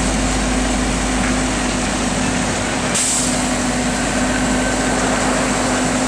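Heavy diesel semi-trailer trucks running steadily with a constant low hum. There is a short air hiss about three seconds in, typical of a truck's air brakes.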